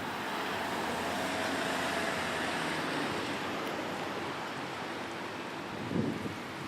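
Road traffic going by: a steady rush of car tyre and engine noise, with a brief thump about six seconds in.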